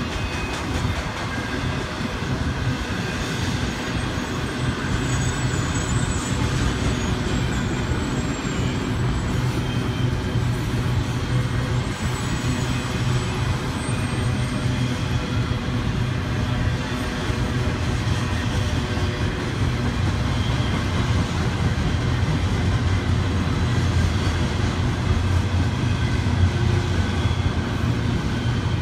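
Double-stack container train's well cars rolling steadily past on the rails, a continuous rumble of wheels on track. A few faint high squeals come through about five to nine seconds in.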